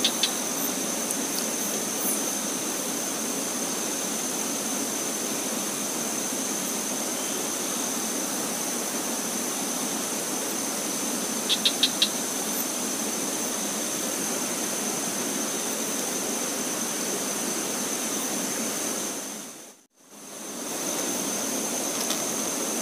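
A swollen river in spate rushing steadily, with a constant high-pitched whine over it. A quick run of four ticks comes about halfway, and the sound cuts out for about a second near the end.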